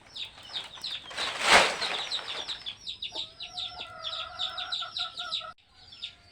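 Chickens peeping, a steady stream of rapid high falling chirps, with a loud noisy flurry about a second and a half in and a long steady call from about three seconds in. The sound cuts off abruptly near the end.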